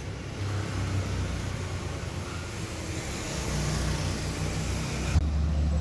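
Steady road traffic noise: a low rumble under a broad hiss. About five seconds in the sound changes abruptly, the hiss dropping away and a deeper steady hum taking over.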